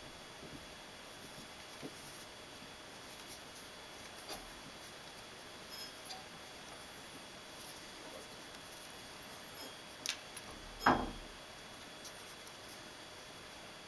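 Light, scattered clicks and taps of small metal parts being handled on an end-mill sharpening jig, with a sharper click about ten seconds in and a louder knock about a second later. There is no grinding.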